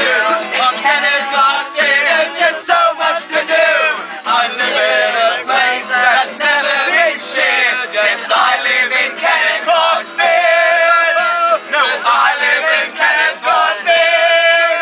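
Several young men singing loudly together with acoustic guitar, a rowdy group sing-along with long held notes after about ten seconds and again near the end.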